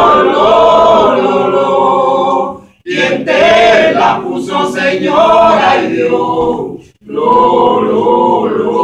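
Small group singing a Venezuelan tono to the Cruz de Mayo a cappella, several voices holding long, drawn-out phrases together. The singing breaks off briefly twice, about a third of the way in and again near the end, before the next phrase.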